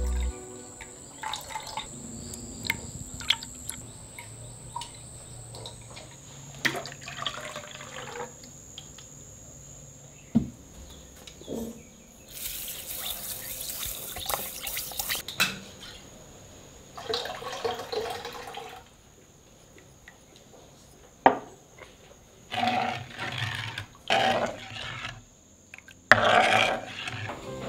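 Kitchen cooking sounds: liquid dripping and small knocks, then about three seconds of steady hiss as sugar pours into a pan of hot syrup. Several shorter bursts of sizzling and stirring follow, over a faint steady high-pitched tone.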